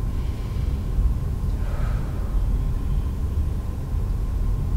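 Steady low rumble of room background noise, with a faint high steady hum above it.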